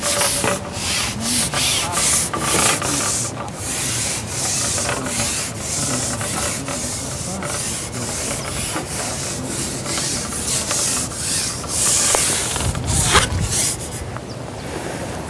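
Irregular rustling, rubbing noise, strong in the high range, that surges and fades every second or so and eases near the end.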